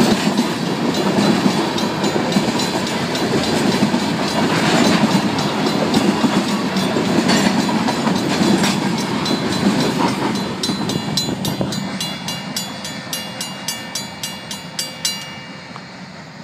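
Union Pacific freight train's hopper cars rolling past with a loud rumble and wheels clacking over the rail joints, fading as the end of the train moves away. As the train noise dies down, the crossing's Safetran mechanical bell comes through ringing in steady strokes, about two or three a second, and stops about a second before the end.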